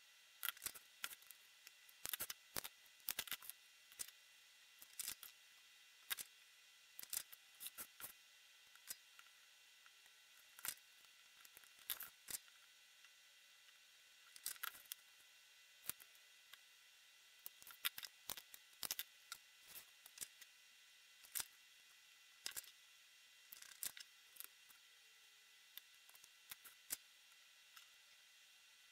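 Irregular light clicks and taps of pliers and a soldering iron working at a small LED board, over a faint steady hiss.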